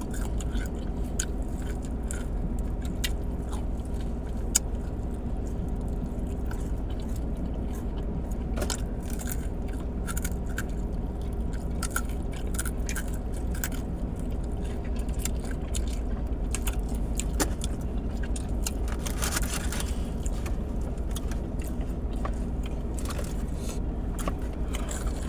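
Close-up chewing and biting on crispy fried chicken wings, with scattered crunchy clicks, over a steady low hum.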